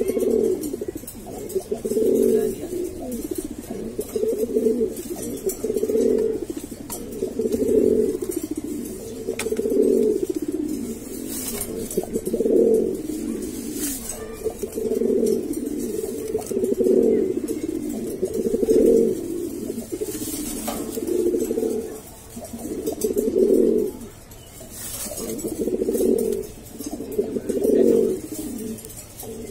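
Domestic pigeon cooing over and over in courtship, a low coo that swells and fades about every second or two.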